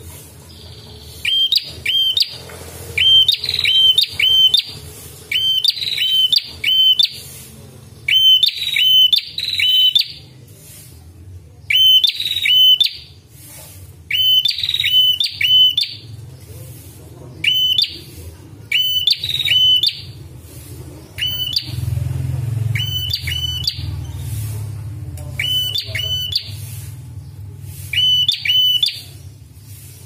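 A tailorbird singing: loud, sharp, high notes in quick pairs and triplets, phrase after phrase about a second or two apart, over a low steady hum.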